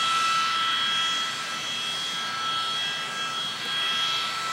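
Boeing 737-200's Pratt & Whitney JT8D turbofan engines running at high thrust on the takeoff run: a steady, loud jet roar with high whining tones, swelling and easing a little.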